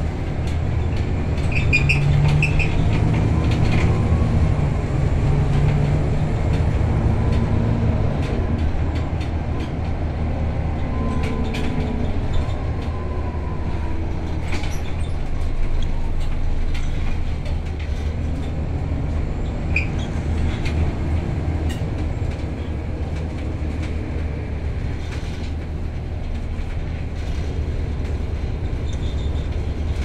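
Scania L94UA city bus heard from inside the cabin while it drives: a steady low engine and road drone whose pitch shifts a few times around the middle, with scattered rattles and clicks from the body.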